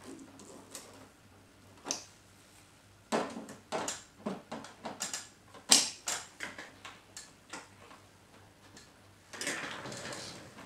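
Handling clicks and knocks of plastic coffee-machine parts being fitted and moved during reassembly: a run of irregular taps and clicks with one sharp loud knock in the middle, then a brief scraping rush near the end.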